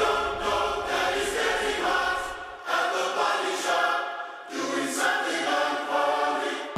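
Background music: a choir-like vocal chorus holding sustained chords, with no beat.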